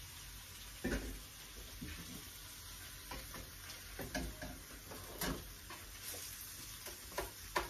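Salmon and onion sizzling in a frying pan while a wooden spoon stirs them, with a short knock or scrape of the spoon against the pan about once a second over a steady hiss.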